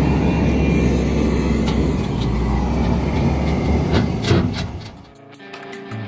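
Dump truck unloading: its diesel engine runs steadily while the raised bed tips a load of fill dirt out the back, with a few sharp knocks. The rumble fades about five seconds in, and music comes in near the end.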